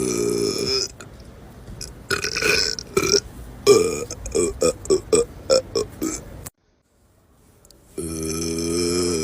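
A man burping: a long, drawn-out belch ends about a second in, followed by a quick run of about a dozen short burps, a brief silence, and another long belch near the end.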